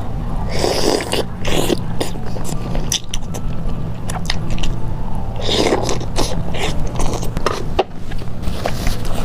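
Close-up mukbang eating sounds: a person biting and chewing food, with irregular small clicks and two louder bites, one near the start and one about six seconds in.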